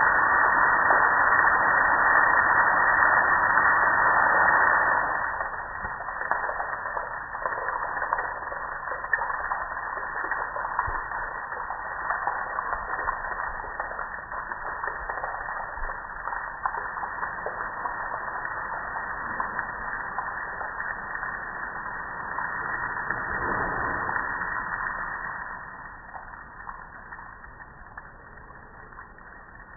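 Water splashing and streaming down over a soaped-up gas grill onto concrete: a steady hiss, loudest for the first five seconds, then lighter, swelling briefly and easing off near the end.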